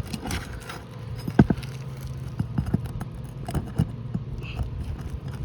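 Irregular light clicks and scrapes of hand work on asphalt roof shingles, with one sharper knock about a second and a half in, over a steady low hum.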